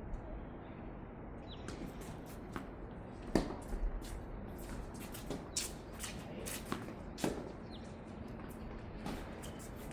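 Tennis balls being struck and bouncing: a scattering of sharp, irregular knocks, the loudest about three and a half seconds in.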